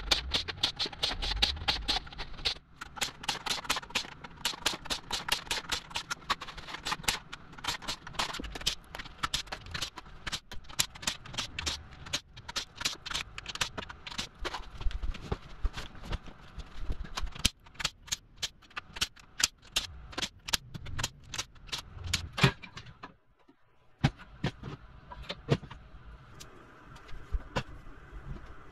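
Rapid, dense clatter of clicks and knocks from battery-pack parts and hand tools being handled, sped up in a timelapse, with a brief lull about 23 seconds in.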